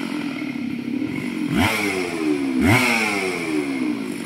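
Two-stroke chainsaw engine being blipped: it revs up sharply twice, about a second apart, each time winding slowly back down toward idle.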